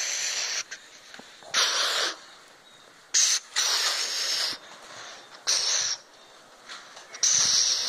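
Heavy, rough breaths close to the microphone, about every one to two seconds, each a loud hiss lasting half a second to a second.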